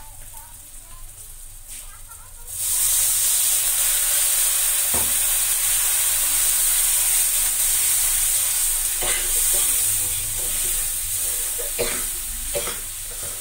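Liquid hits a hot iron kadai of frying onion-tomato masala: a sudden loud sizzle about two and a half seconds in, which then keeps hissing steadily. A few knocks and scrapes of a metal spatula against the pan come in the second half.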